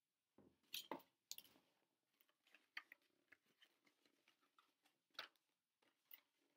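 Crayons rattling and clicking against each other in a cardboard crayon box as fingers rummage through it: a cluster of sharper knocks about a second in, then scattered light clicks.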